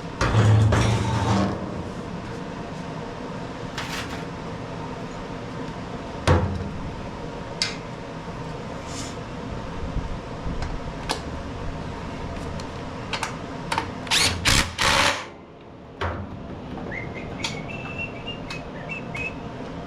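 Metal parts and hand tools knocking and clanking while a small pressure-washer engine is handled and turned over on the bench. A steady mechanical hum sits underneath. The loudest moments are a heavy thump about half a second in and a short cluster of rattling knocks roughly three quarters of the way through.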